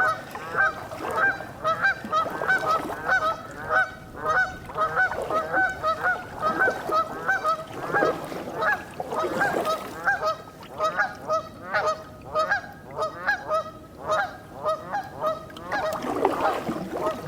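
A flock of Canada geese honking continuously, many overlapping calls several times a second.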